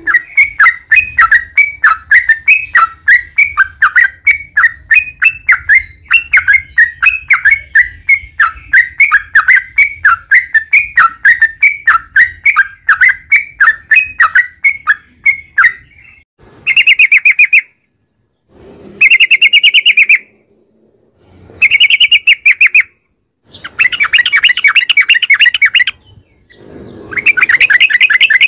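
Yellow-vented bulbul (trucukan) singing: a long rapid run of bubbling notes, about three a second, for some sixteen seconds, then five short fast trilled phrases separated by gaps of about a second.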